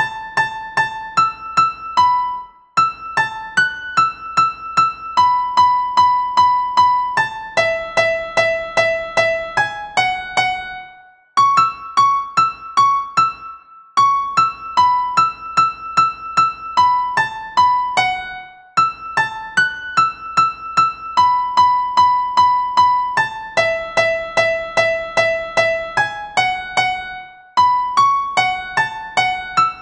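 Background music: a light keyboard tune of quick, evenly paced notes, in phrases broken by brief pauses about every eight seconds.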